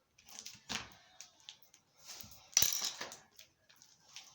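Hands kneading and stretching glue-and-borax slime, with sticky rustles and clicks and one louder knock and clatter about two and a half seconds in.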